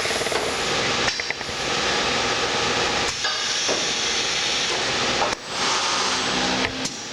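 Sencorp 2500 roll-fed thermoformer running: a loud steady hiss of compressed air from its pneumatic cylinders and valves, broken by short knocks about every two seconds as the machine cycles.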